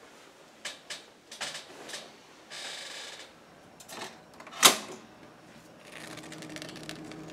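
A few light knocks and a brief rustle, then bread dropped into a Cuisinart four-slice toaster and its lever pushed down, latching with one sharp clack, the loudest sound. A faint low hum sets in near the end.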